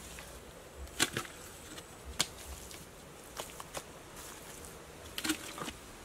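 Hand plastering: wet cement plaster slapped and smeared by hand onto an earthen pit wall, making a few sharp slaps about one, two and five seconds in, with softer knocks between, over a faint steady hiss.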